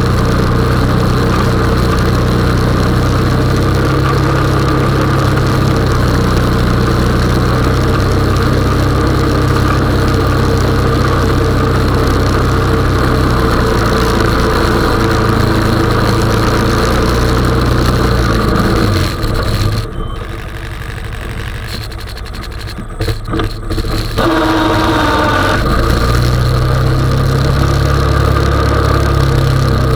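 Honda 420 ATV's single-cylinder engine running steadily while it pushes a snow plow. About twenty seconds in it drops much quieter for a few seconds, then picks up again with a brief rise in pitch and runs on steadily.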